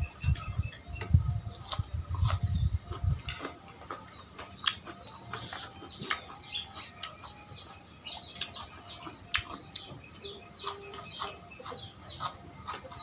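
Someone eating close to the microphone: a run of short clicks and smacks from chewing and mouth sounds, with low thumps during the first three seconds or so.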